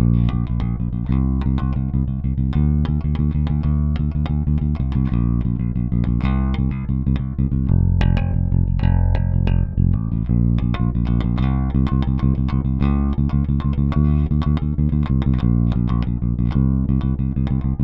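Sago Seed Tabuchi Mk-II electric bass with a Tabuchi custom pickup, played as a sound check: a quick, busy line of plucked notes that starts abruptly and runs without a break.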